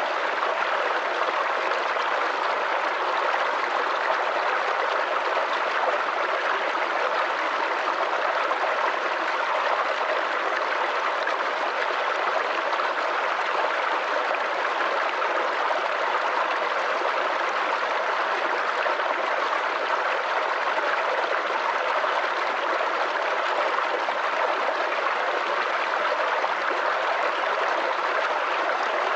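Small forest creek babbling and gurgling over stones, a steady, even rush of water.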